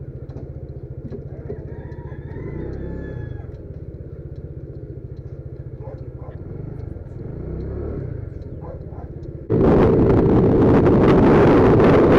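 Scooter engine running at low speed, a steady low rumble with faint voices nearby. About three-quarters through it changes abruptly to loud wind noise on the microphone while riding.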